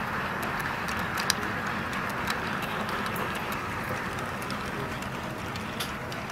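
Sn3 model freight train rolling along the layout track: a steady rolling rumble from the cars' wheels, with irregular sharp clicks as they cross rail joints.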